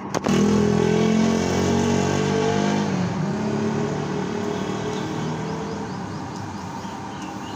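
A motor vehicle's engine passing close by. It comes in loud about a third of a second in, drops in pitch around three seconds in, then fades away.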